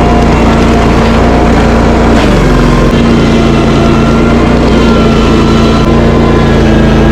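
Loud gasoline engine of tree-cutting power equipment running steadily at high speed; about two seconds in its pitch drops briefly, as if bogging under load, then recovers.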